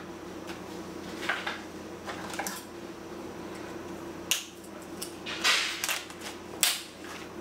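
Handling noise from packing raw dog food into plastic zip-top bags: scattered plastic crinkling and a few sharp clicks, the sharpest about four and a half and nearly seven seconds in, over a faint steady hum.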